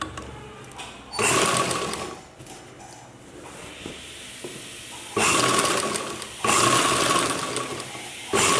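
Sewing machine stitching through layered cotton fabric in short runs, starting and stopping. There is one run about a second in, a pause of a few seconds, then three runs close together near the end.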